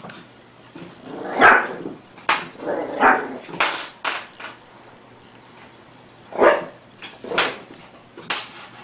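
Dog barking: a string of short barks about a second apart, a gap of about two seconds partway through, then more barks.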